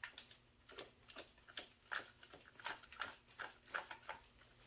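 Faint, irregular clicks and small knocks of a pressure washer's hose end being pushed into its fitting and twisted on.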